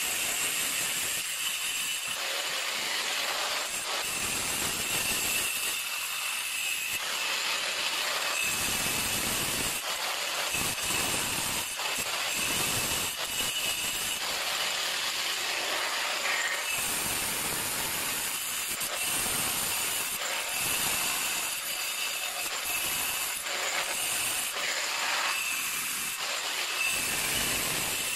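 Handheld angle grinder cutting through countertop tile: a steady high whine with a grinding hiss, the grinding growing heavier and lighter in stretches as the blade is pushed along the cut.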